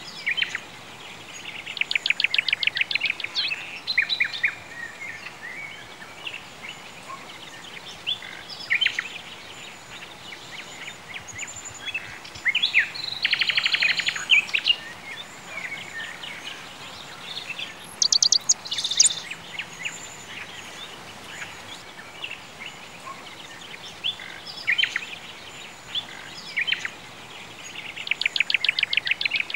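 Songbirds singing: several birds with scattered chirps, and one fast trilled song phrase that recurs near the start, in the middle and near the end, plus a higher, quicker trill about two-thirds of the way through.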